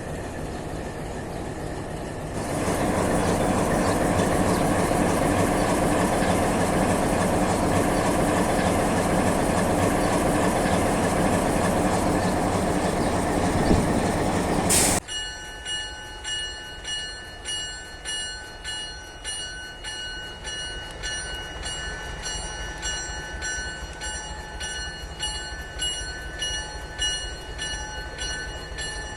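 Alco 12-251-CE V12 diesel engine of an Emaq MX620 locomotive running, growing louder a little over two seconds in and holding steady. About halfway through it changes abruptly to a quieter sound with steady high whining tones and a regular pulse about one and a half times a second.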